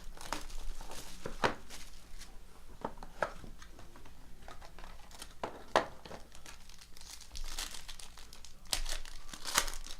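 Plastic wrapping crinkling and tearing, with irregular crackles and a few sharp snaps, as a sealed box of trading cards is opened.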